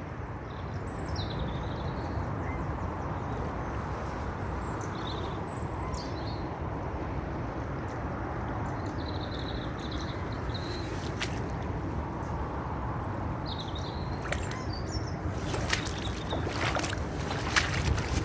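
Steady rush of a swollen, fast-flowing flooded river, with faint high bird chirps scattered through. A few short sharp clicks or splashes come near the end.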